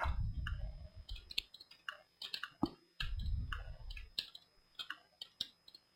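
Computer mouse clicking, many short irregular clicks in quick succession as polygons are picked one by one. A low rumble sounds in two stretches, near the start and around the middle.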